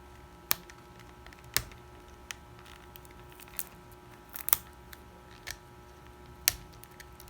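Sharp clicks and taps of hands working at stubborn product packaging, a few scattered strokes roughly a second apart.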